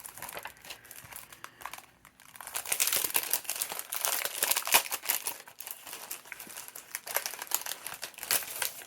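Scrapbooking papers and die-cut frames from a kit being handled, crinkling and rustling. It is light for the first two seconds, then busier, with many small sharp crackles.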